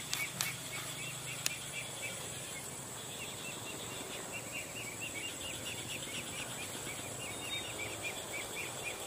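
Rural outdoor ambience: a bird calling in long runs of short repeated chirps, about four a second, over a steady high-pitched whine, with two sharp clicks in the first second and a half.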